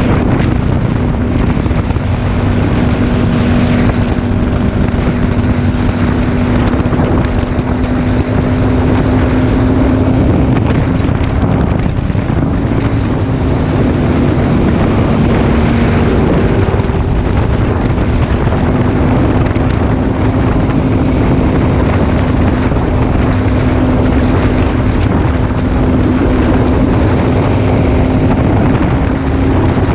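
Aprilia Tuono 1000R's V-twin engine running at a steady cruising speed, its note dipping slightly about halfway through and then recovering, over heavy wind noise on the microphone.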